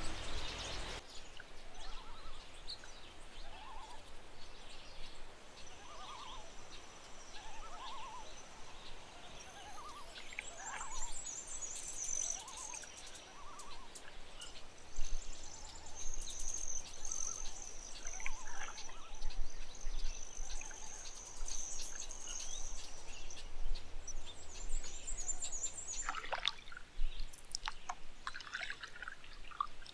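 Evening lakeside ambience of distant calling wildlife: faint frog calls spaced a second or two apart, and a high trill on and off through the middle part.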